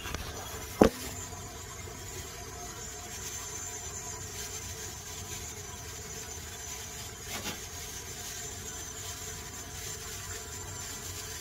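Dishes being put away: one sharp, loud clank about a second in and a softer knock around seven seconds, over a steady background hiss.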